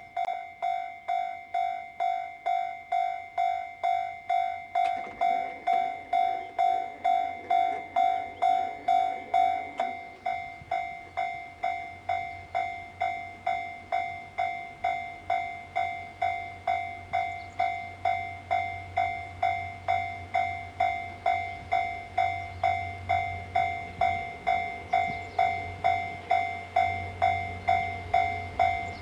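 Railway level crossing warning bell ringing at a steady rate of about two strokes a second. A low rumble comes in underneath it about ten seconds in and grows.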